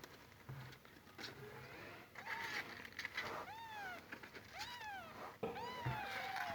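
Kittens mewing: a run of short, high-pitched, arching cries, roughly one a second, starting about two seconds in, with two cries overlapping near the end.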